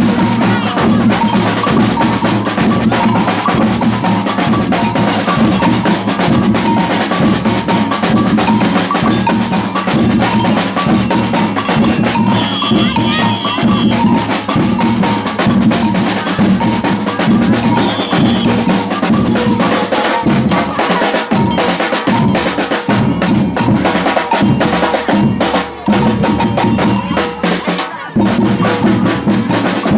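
Batucada percussion group playing a driving samba rhythm: deep bass drums, snare drums and sharp bell- and block-like strikes. The ensemble drops out briefly twice near the end.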